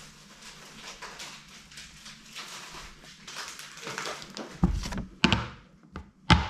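Soft rustling of cardboard and paper, then three loud thumps and knocks as the camera is handled and set down against the cardboard box, the last the loudest.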